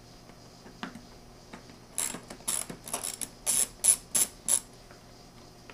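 Hand ratchet clicking in a run of sharp clicks, about three a second, from about two seconds in. It is backing out the 6 mm hex screws that hold a motorcycle's airbox lid.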